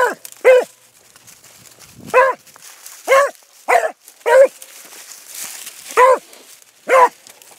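A beagle barking while working a rabbit's scent line: about eight short barks at uneven intervals, each under half a second.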